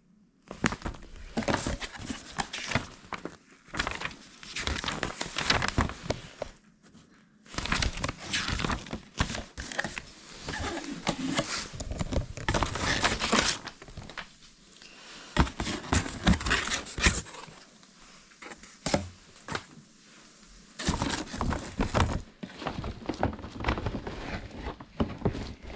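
Packaging being handled and unwrapped: crinkling and crumpling with some tearing, in irregular bursts with short pauses.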